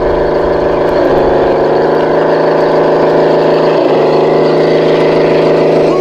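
Tamiya Toyota Tundra High-Lift RC truck running over rocks: a steady engine-like drone that dips briefly in pitch about a second in and again near four seconds.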